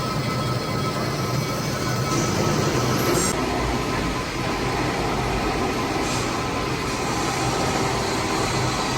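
Metal-turning lathe running steadily while turning a bronze bush: a continuous loud machine noise with a faint steady whine.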